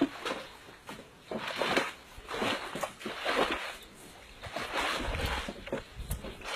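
River water sloshing and splashing as people wade waist-deep and move a bamboo raft frame through it, in repeated swells about once a second.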